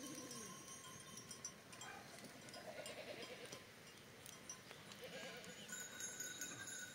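Sheep bleating faintly, several wavering calls: one at the start, one in the middle and one about five seconds in.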